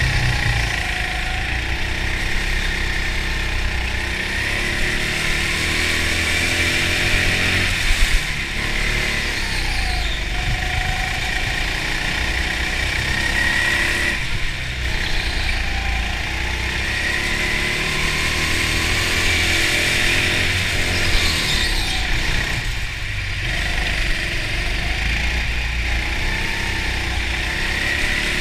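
Go-kart motor running under load while driving around the track: a steady low drone with a whine whose pitch rises and falls with speed through the corners.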